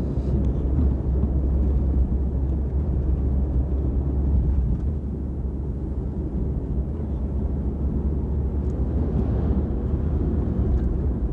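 Steady low drone of a car driving along a road, engine and tyre noise heard from inside the cabin.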